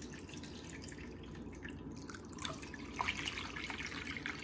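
Water running and dripping into a deep cooking pan, with a few light knocks about three seconds in.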